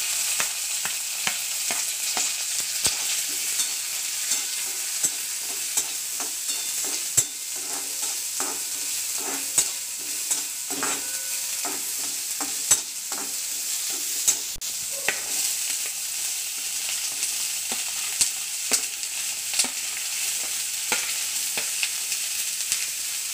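Chopped onion, curry leaves and green chilli sizzling in hot oil in a kadai, stirred with a metal spatula that scrapes and taps against the pan, with a sharp clack every few seconds. Near the end, cubed snake gourd is pushed into the pan and stirred.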